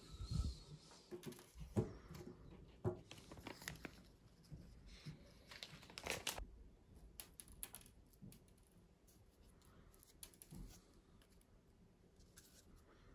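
Plastic instant ramen packet crinkling as a dry noodle block is shaken out of it, with a few sharp light knocks as the block lands on the table. After about six seconds only faint rustling as the dry noodle block is handled.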